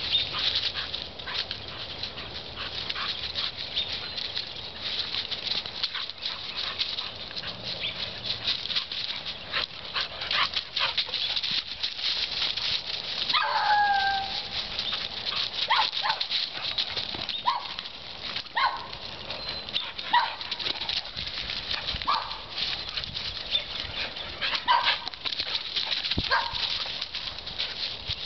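Dogs playing rough in dry fallen leaves: a steady crackle and rustle of paws scuffling through the leaves, with a short falling whine about halfway through and a string of brief high yips every second or two after it.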